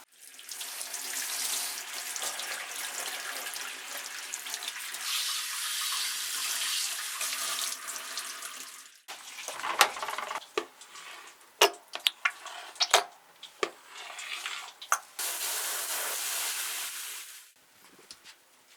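Running water from a tap or spray in a grooming sink, as a toy poodle puppy is wetted for its shampoo. It cuts off about halfway through, followed by scattered sharp splashes and knocks, then a second shorter spell of running water that stops near the end.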